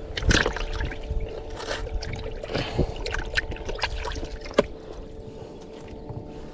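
Water splashing and sloshing in a plastic bucket as hands put cuttlefish into it, with scattered irregular splashes and knocks. One sharp knock comes a little after four and a half seconds.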